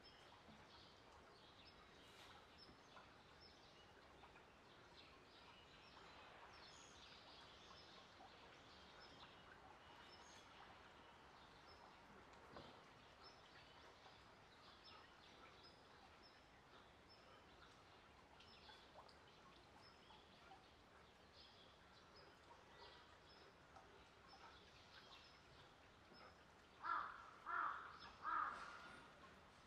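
Faint outdoor ambience with small birds chirping now and then, then a crow caws loudly three times in quick succession near the end.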